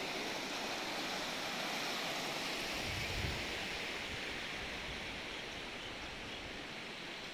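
Steady rush of a fast-flowing, swollen river running over rocks, slowly fading toward the end, with a brief low bump about three seconds in.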